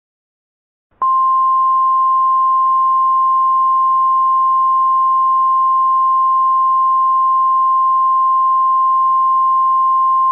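Emergency alert attention tone: a single steady high-pitched beep, in the style of the 1050 Hz NOAA Weather Radio warning alarm, sounding unbroken after about a second of silence. It announces that an emergency alert voice message is about to follow.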